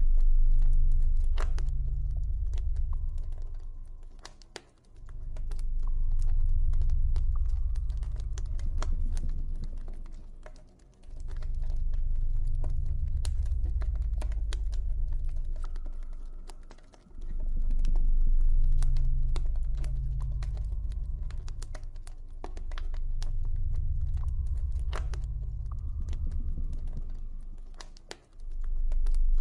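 Campfire crackling with frequent sharp pops, over a deep, low ambient drone that swells and fades about every five to six seconds.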